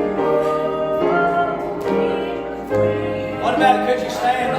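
Slow church music with sustained piano or keyboard chords and a bass note coming in a little under three seconds in, joined by singing near the end.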